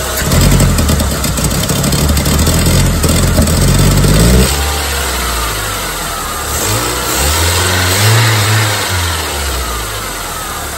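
1999 Saturn SC1's 1.9-litre SOHC four-cylinder engine revved up and held for about four seconds, dropping back suddenly, then rising and falling once more before settling to idle. It is running on only about 12 psi of fuel pressure against a 40–55 psi spec: lean, from a failing fuel pump.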